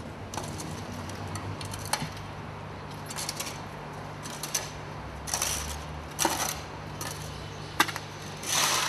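Short scattered rustles and light handling noises, about eight of them, the longest and loudest near the end, over a steady low hum.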